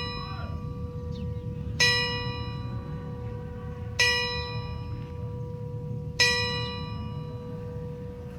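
A single church bell tolling, struck three times about two seconds apart, each stroke ringing on and still sounding when the next one lands. A low steady rumble sits underneath.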